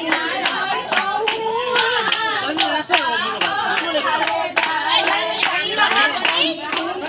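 Group of women singing a wedding song together while clapping hands in a steady rhythm, about three claps a second.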